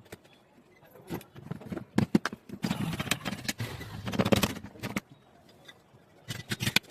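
Irregular metal clicks, knocks and scraping from hand work on an electric planer's parts while a bearing is fitted. There is a denser rattling, scraping stretch in the middle and a further run of clicks near the end.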